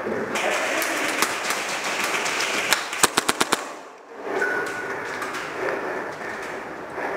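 Airsoft gun firing a quick burst of about six sharp shots about three seconds in, with a couple of single shots before it, over a steady noisy background.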